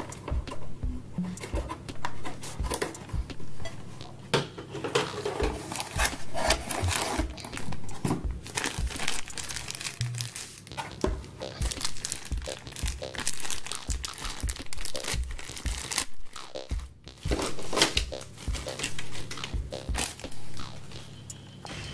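Thin plastic wrapping crinkling and tearing as a cardboard jigsaw puzzle's shrink-wrap and inner bag of pieces are opened, with irregular crackles throughout.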